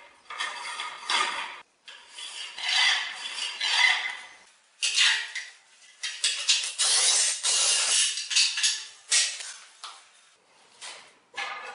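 Ceramic floor tile scraping and grating in a series of rasping strokes as it is handled and scored on a manual tile cutter, densest and loudest in the middle part.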